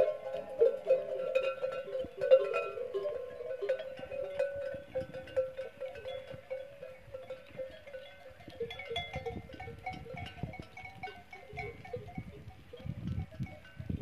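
Many animal bells on a herd of camels clinking and ringing at once, overlapping and irregular. A denser lower tone is strongest over the first few seconds and then fades.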